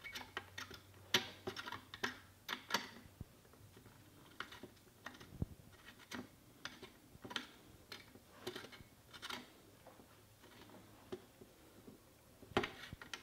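Faint, irregular metallic clicks and taps as the AirForce CondorSS air tank's threaded collar is turned by hand, working the threads into line against the rifle's frame.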